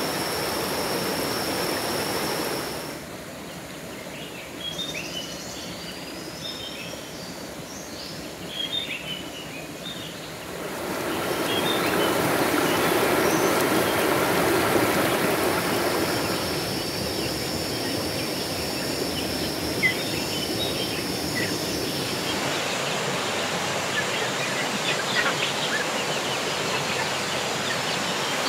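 Outdoor nature ambience in several abruptly changing stretches: a steady rushing noise like flowing water, with birds chirping in a quieter stretch a few seconds in. A thin steady high tone sounds at the start and again in the second half.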